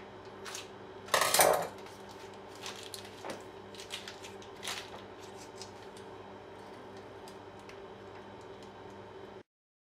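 Handling sounds of a plastic piping bag over a parchment-lined metal baking tray: scattered rustles and light clicks, the loudest about a second in, over a faint steady hum. The sound cuts off abruptly near the end.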